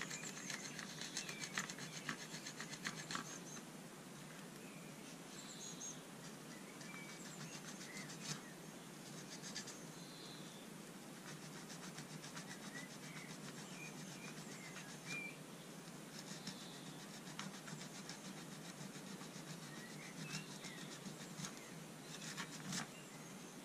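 Green nylon abrasive pad scrubbing the brass tip of a boxwood folding rule: a faint, steady scratchy rubbing in quick short strokes, with a few light clicks in the first few seconds.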